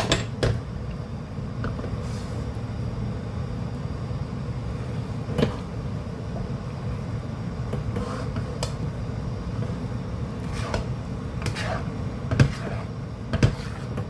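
Spoon or spatula stirring a thick, sticky calamay mixture in a cooking pan, knocking and scraping against the pan every second or few, the two loudest knocks near the end, over a steady low hum.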